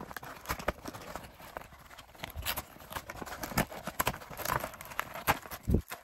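Cardboard toy packaging being handled: the box's inner tray and insert pulled out and its ties tugged loose, giving irregular scrapes, taps and knocks of cardboard.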